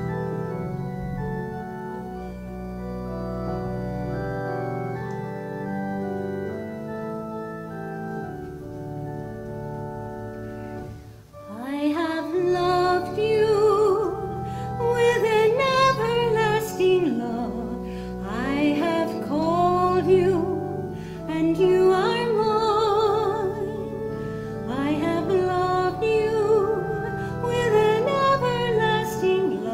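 Organ playing held chords alone. About eleven seconds in, a solo singer enters with a wide vibrato and sings a melody over the organ accompaniment.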